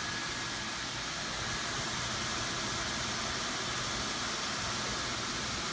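Steady whoosh of the Gemmy Snoopy Sno Machine inflatable's blower fan running, keeping the foam snow beads swirling in the clear globe, with a faint high whine over it that fades out about halfway through.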